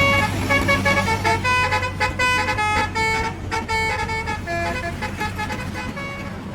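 Telolet musical horn playing a quick tune of short notes that jump between pitches, over a steady low hum.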